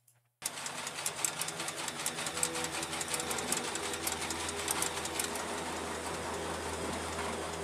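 Ammunition feed machinery for a 20 mm rotary cannon whirring steadily with a rapid, irregular clatter as belted rounds are fed into the loader. It starts about half a second in.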